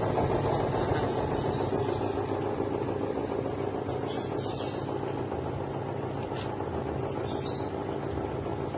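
Drum-type feather plucking machine running with a steady mechanical drone that slowly gets a little quieter. Birds chirp briefly, about four seconds in and again near the end.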